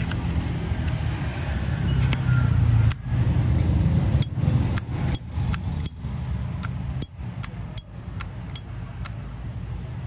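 Brass Zippo lighter lid being flipped open and snapped shut over and over: about a dozen sharp metallic clicks with a bright ringing ping, starting about four seconds in. A steady low hum runs underneath.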